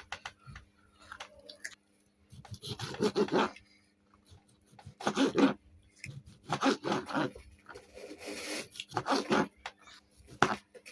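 Kitchen knife cutting a tomato into cubes on a chopping board, in irregular sawing strokes with a few sharp taps of the blade on the board. Several short voice-like sounds come in between.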